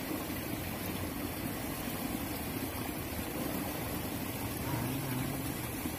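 Steady rush of a fast-flowing, swollen muddy river.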